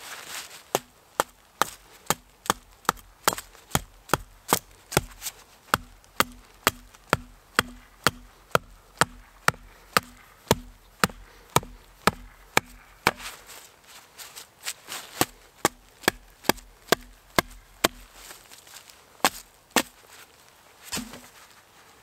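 Hatchet blade chopping into the end of a wooden pole in quick, even strokes, about two a second, with a short pause about two-thirds of the way through and a last single strike near the end.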